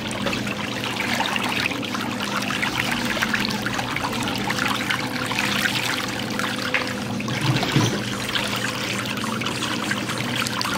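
Pedicure foot-spa whirlpool jet churning and splashing the water in the basin around a pair of feet: a steady rush of water over a low, even hum.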